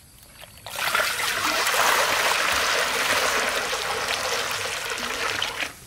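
Water poured in a steady stream from a plastic container into a large iron wok, splashing on the metal. It starts about a second in and cuts off suddenly near the end.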